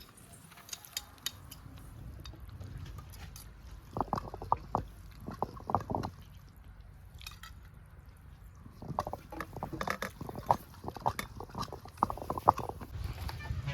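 Wet goat intestines being squeezed and rubbed by hand in water while they are washed: squelching in two bouts, about four to six seconds in and again from about nine to twelve seconds.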